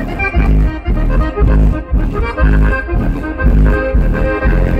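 Loud bass-heavy music on a car audio system, its deep bass notes coming from a CT Sounds Strato 15-inch subwoofer in a ported box powered by a Crossfire BMF1000d amplifier. The bass hits in a repeating beat under the rest of the song.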